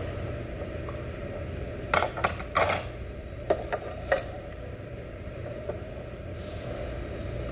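Chopsticks knocking against a ceramic bowl and dishes: a quick run of six or so short sharp clinks about two to four seconds in, over a steady low hum.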